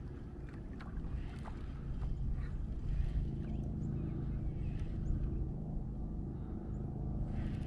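Kayak on the water: a steady low rumble with water sloshing against the hull and a few light clicks and knocks.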